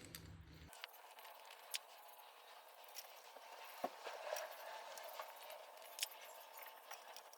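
Faint, scattered metallic clicks and taps as cam bearing caps and their bolts are handled and set in place on an engine's cylinder head.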